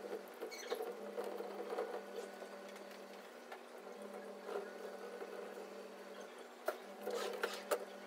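Cloth rubbing and squeaking on window glass, with a few short spray-bottle spritzes of glass cleaner near the end, over a low steady hum.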